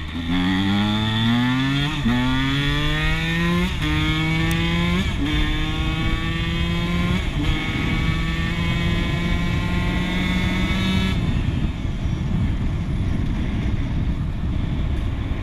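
Dirt bike engine accelerating through the gears: its note climbs, then drops sharply at each of about five upshifts. It then holds a steady cruising note, and about eleven seconds in the throttle closes and the engine note falls away into wind and road noise.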